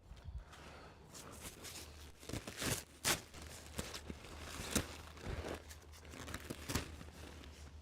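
Irregular rustling and crinkling with scattered small knocks, the loudest a little after two and three seconds in.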